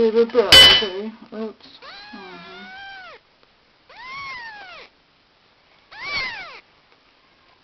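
Kittens meowing: a string of separate meows, each rising then falling in pitch, the longest at about two seconds in, with a loud, sharp noise about half a second in. The calls stop a little before the end.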